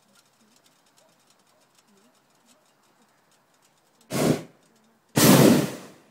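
Hot-air balloon's propane burner firing in two short blasts about a second apart, the second longer and louder.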